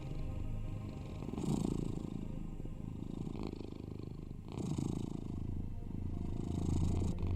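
Cat purring steadily, swelling and easing with each breath about every three seconds.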